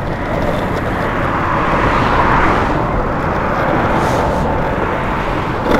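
Longboard wheels rolling over asphalt and paving, a steady rough rumble, with street traffic swelling past about two seconds in. A short knock near the end.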